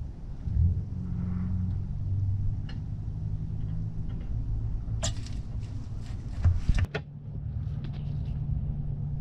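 Gear oil being squeezed from a plastic bottle into a car's differential fill hole, with a few sharp crackles of the bottle partway through, over a steady low rumble and hum.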